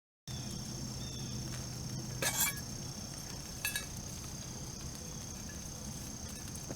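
Two brief metallic clinks, about two and a half and four seconds in, over a steady high-pitched drone and low background hum.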